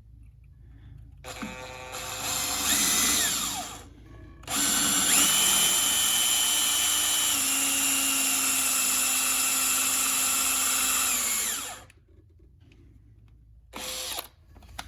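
Cordless drill working into a snapped stainless steel bolt. A short run a little over a second in speeds up and slows down; after a pause comes a long steady run of about seven seconds that winds down, then one brief burst near the end.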